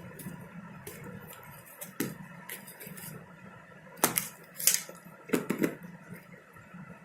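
Clicks and taps of a smartphone box and its packaging being handled during unboxing, several separate knocks, the loudest about four and five seconds in.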